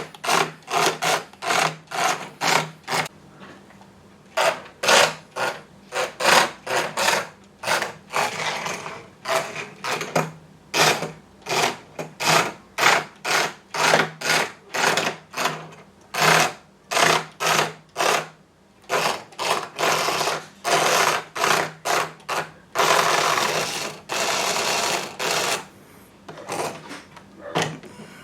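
Tiny electric drive motor of a 1:64-scale Hot Wheels radio-control car whirring in many short spurts as the throttle is blipped, with one longer run of a couple of seconds about two-thirds of the way in.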